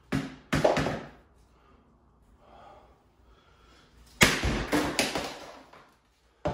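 An axe striking an old Scorpion motorcycle helmet on a wooden floor: two sharp blows near the start, then a louder cluster of hits about four seconds in.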